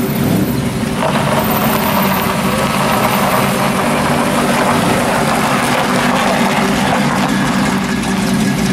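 Engine of a customised early-1950s Ford F-1 pickup running at low speed with a steady rumble as the truck rolls slowly past.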